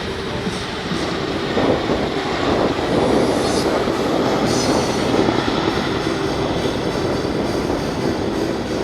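Boeing CH-147F Chinook tandem-rotor helicopter on a high-speed pass: a loud, steady rumble of rotors and turbines that swells about two seconds in and stays loud.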